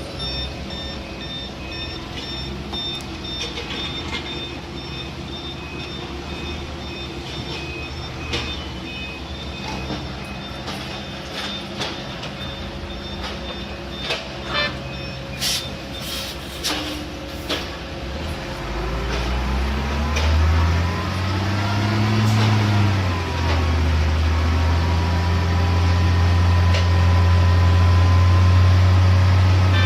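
Heavy construction machinery: a reversing alarm beeping in the first half, a few clanks about halfway through, then a large engine revving up and down before running loud and steady near the end.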